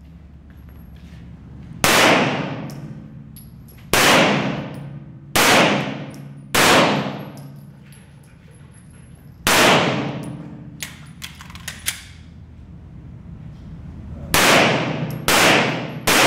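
Semi-automatic pistol fired eight times at irregular intervals, in pairs and singles, each shot ringing out with a long echo off the concrete walls of an indoor range. A few faint light clicks come between shots midway.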